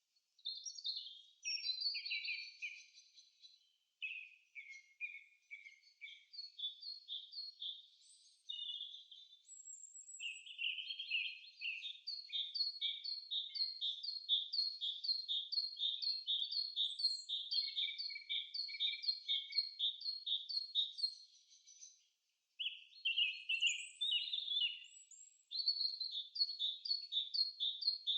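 Songbirds singing: fast runs of high, short chirping notes repeated several times a second, in overlapping phrases, with a brief gap about three-quarters of the way through.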